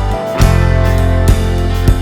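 Background music: guitar-based rock with a steady drum beat.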